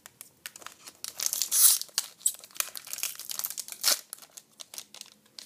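Wrapper of a Teamcoach AFL trading card pack crinkling and tearing as it is opened by hand, in irregular crackles that are loudest about a second and a half in and again near four seconds.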